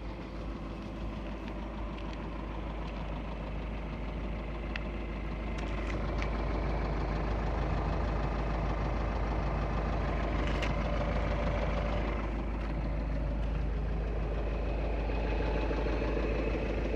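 Volkswagen Group 2.0 TDI common-rail diesel engine running with a knock, which the owner puts down to worn connecting-rod bearings. The engine gets louder about six seconds in and stays up.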